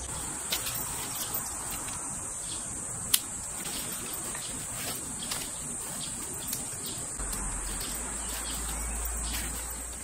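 Insects chirring steadily in summer woodland, with a few light clicks and knocks, the sharpest about three seconds in.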